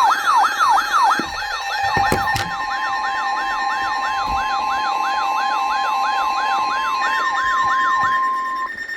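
Electronic siren wailing up and down in pitch about three times a second. A steady single-pitch alert tone, the weather-radio warning alarm, joins about two seconds in and stops shortly before the end. A sharp click comes about two seconds in.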